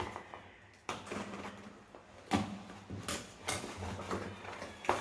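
Delivery packaging being handled and worked open by hand: several sharp cracks and taps, irregularly spaced, with handling noise between them.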